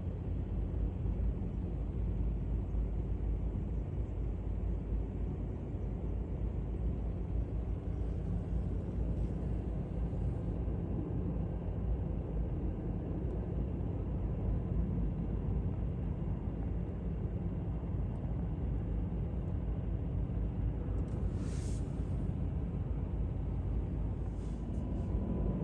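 Steady low rumble of airport ambience, heavy in the bass and even in level, with a brief scratchy noise about twenty-one seconds in.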